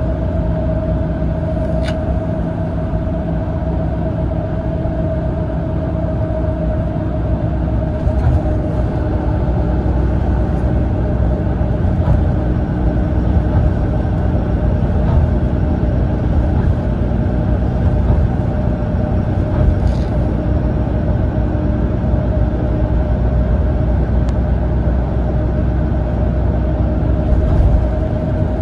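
Steady cabin sound of a Mitsubishi Fuso Aero Ace coach cruising at road speed: a constant low rumble of engine and tyres with a steady mid-pitched whine, and a few faint clicks of interior rattles.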